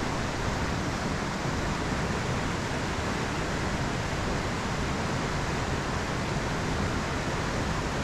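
Creek water rushing over riffles, a steady even rush.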